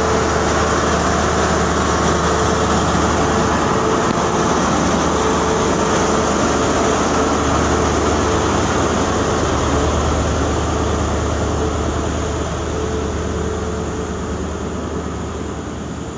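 First Great Western High Speed Train Class 43 diesel power car moving past close by, its engine running loudly with a low hum and a steady whine. The sound fades over the last few seconds as the train draws away.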